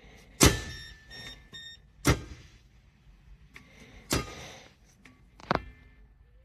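Four sharp clunks, roughly two seconds apart, each with a short ring after it, and faint short beeps after the first; typical of a small steel biometric gun safe's lid being shut and worked.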